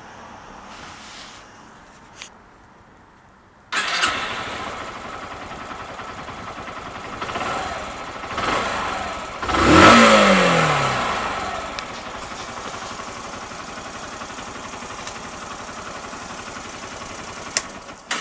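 2011 Yamaha YBR 125 ED's air-cooled single-cylinder four-stroke engine starting about four seconds in and settling to idle. It is blipped lightly twice, then revved once hard, falling back to idle over about a second, and idles steadily until it is switched off at the very end.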